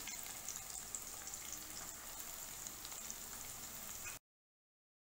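Vegetables (shredded cabbage, capsicum, carrot and onion) sizzling in hot oil in a wok, a steady hiss with small scattered crackles. The sound cuts off suddenly about four seconds in.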